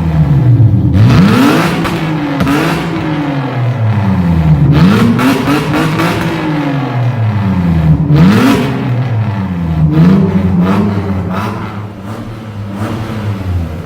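Toyota Mark II JZX90's straight-six revved in repeated blips through an open electric exhaust cutout on a straight-through cat delete: very loud, each rev rising and falling in pitch, with crackling pops on the overrun as flame shoots from the cutout outlet about a second in.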